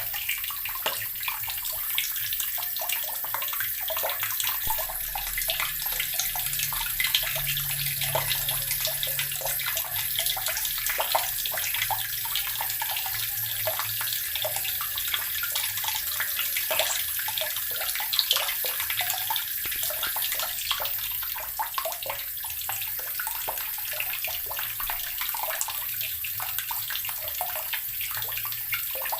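Water running from a tap into an earthen barrel, gurgling and splashing steadily.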